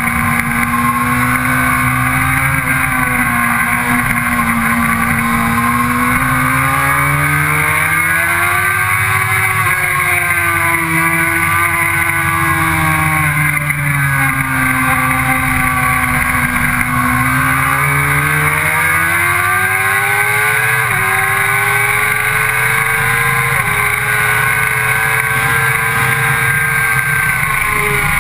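Sport motorcycle engine at track speed, heard from a camera mounted on the bike, with wind rush over the fairing. Its pitch swings up and down with the throttle through the corners and straights, climbs with a couple of short jumps at gear changes about two-thirds of the way through, then falls near the end as the bike brakes.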